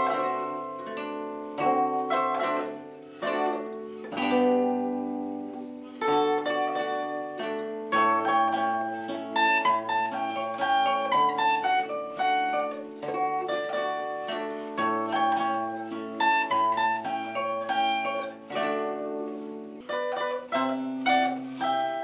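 Zither played solo: a plucked melody over bass notes, each note starting sharply and ringing on.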